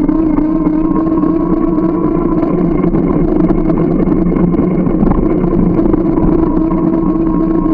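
Steady riding noise from a moving bike, picked up by a camera mounted on it: a loud, even drone with a rough rumble of wind and road underneath, unchanged throughout.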